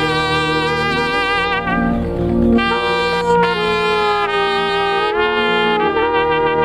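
Instrumental worship music: a wind instrument plays a slow melody of long held notes with vibrato over a sustained keyboard and bass backing, changing note about every second or two.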